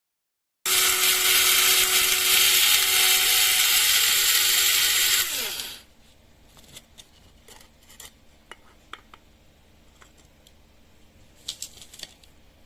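Electric blade coffee grinder's motor running at full speed for about four and a half seconds, then spinning down with a falling pitch once it is switched off. A few faint clicks and taps follow.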